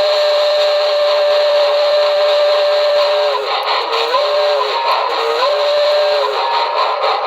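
Recorded steam-locomotive whistle from a QSI Maxx Traxx model-train sound system, played through a speaker, over a steady hiss. One long blast holds steady, then drops lower, comes back twice briefly, and stops near the end.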